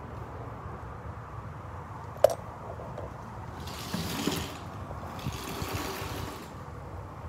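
A shed door being opened: one sharp click or knock about two seconds in, then two rough scuffing noises shortly after, over a steady low rumble.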